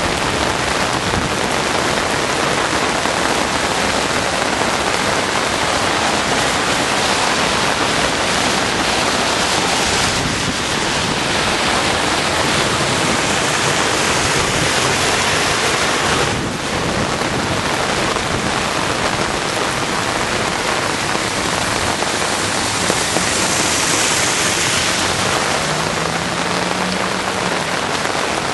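Heavy rain falling steadily, a dense continuous hiss of rain on the ground and standing floodwater.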